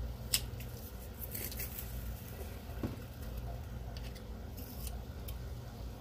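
A kitchen utensil stirring cream and sour cream in a steel saucepan: soft wet stirring with a sharp click against the pot about a third of a second in and a few light clicks and scrapes later, over a steady low hum.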